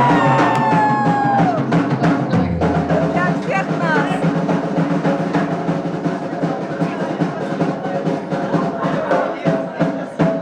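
Live rock band playing, driven by a drum kit with a steady beat of bass drum and cymbal strikes; a held note glides down in pitch over the first second and a half.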